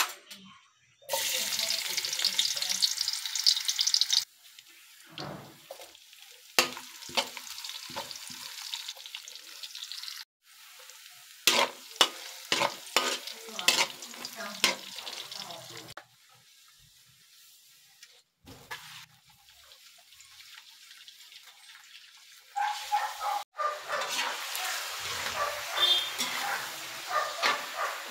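Ginger, garlic and onion sizzling in hot oil in an aluminium wok, later squid frying, while a metal spatula stirs and clinks against the pan. The sizzle comes in loud stretches, about a second in and again near the end, with quieter stirring and sharp spatula clicks in between.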